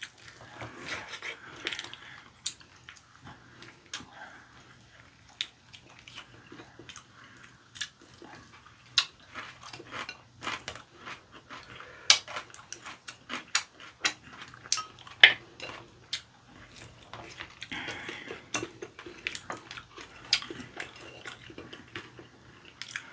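Chopsticks clicking and tapping against ceramic rice bowls and plates, many short sharp clicks at irregular intervals, with soft chewing of fried chicken and rice between them.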